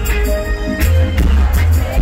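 Live reggae band playing through a loud festival PA: a heavy bass line under regular drum hits and sustained keyboard notes.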